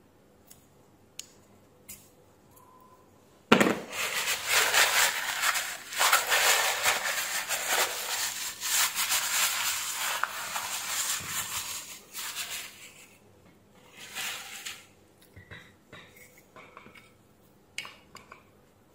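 Tissue paper crumpled and rubbed over greasy drill gearbox parts, crackling loudly for about nine seconds, then again briefly. A few light clicks of small metal parts come before and after.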